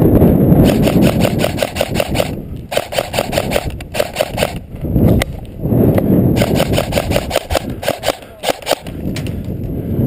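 Airsoft electric rifle firing three long strings of rapid shots, several a second, with short gaps between strings, over a heavy low rumble on the helmet camera's microphone.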